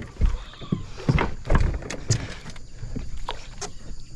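Irregular knocks and thumps on a small fishing boat, about two a second and fading near the end, over a low rumble, while an angler moves about fighting a hooked fish alongside.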